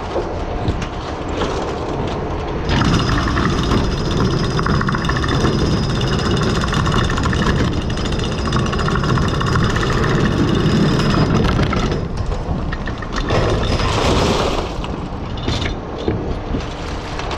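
Oyster dredge boat's engine and winch gear running, with a steady whine that comes in about three seconds in and falls away about twelve seconds in. Oyster shells clatter on the culling board as they are sorted.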